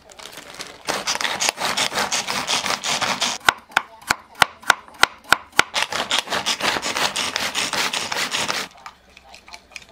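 Kitchen food prep on a wooden cutting board: a stretch of dense rapid cutting noise, then a cleaver chopping carrot slices with sharp chops about four a second, then a pull-cord manual food chopper whirring with quick pulls. The chopper stops near the end.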